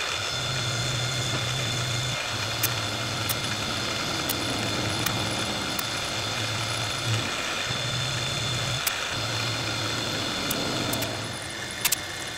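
Milling machine running with an end mill cutting into an aluminium ring: a steady motor drone with a high whine, broken by a few sharp ticks. The sound drops a little near the end.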